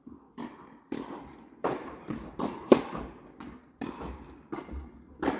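Tennis rally: the ball struck by rackets and bouncing on the hard court, a quick run of sharp pops, each echoing around an indoor tennis hall, the loudest near the middle.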